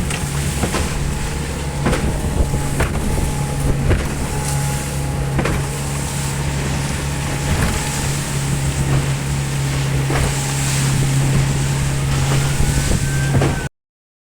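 Motorboat running under way: a steady low engine drone with irregular knocks and wind on the microphone. It cuts off abruptly near the end.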